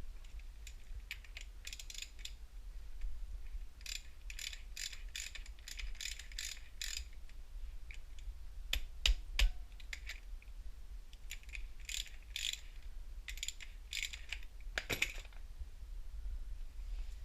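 A hand ratchet wrench clicking in several bursts of rapid clicks, with a few sharper metal knocks about nine seconds in and again near fifteen seconds.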